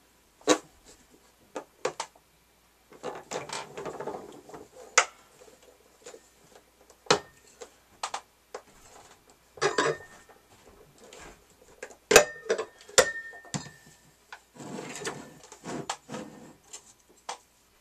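A floor corker being worked and glass beer bottles handled: a string of sharp knocks and clicks, a few ringing briefly like glass clinking, with softer rustling twice.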